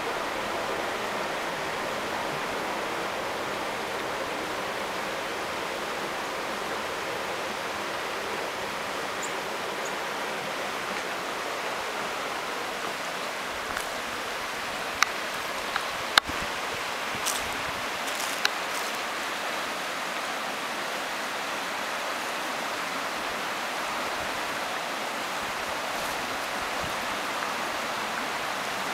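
Shallow river running over rocks: a steady rush of flowing water, with a few sharp clicks near the middle.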